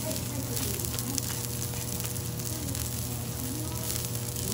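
Thick block of marbled wagyu beef searing in oil on a flat-top teppan griddle: a steady sizzle with frequent small crackles and pops of spitting fat.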